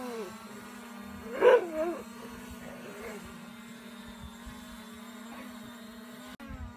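A dog barking up at a low-flying drone: one bark is still dying away as the sound begins, a loud, pitch-bending bark comes about a second and a half in, and fainter ones follow. Under the barks runs the steady hum of the drone's propellers.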